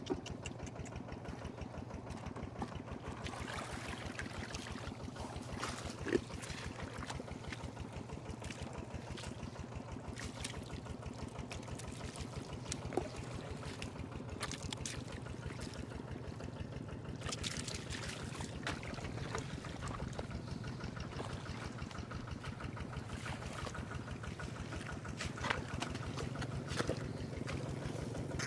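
A small engine runs steadily with a low hum and a fine, fast pulse. Over it come wet squelches and splashes of hands digging through mud and shallow water, with a few sharper splashes here and there.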